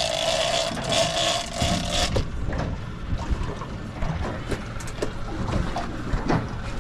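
Big-game fishing reel's drag screaming as a hooked striped marlin pulls line off: a steady whine with hiss that cuts off about two seconds in. After that come boat noise, knocks and rubbing.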